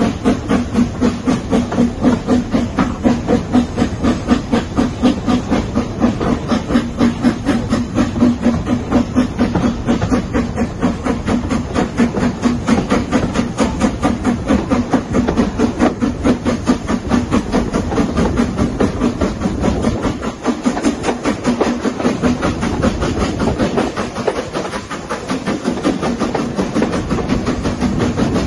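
BR Standard Class 4MT 4-6-0 steam locomotive working a train along the line: a rapid, regular beat of exhaust chuffs with hiss and the train's running noise, heard from a carriage window. The beat eases briefly twice in the second half.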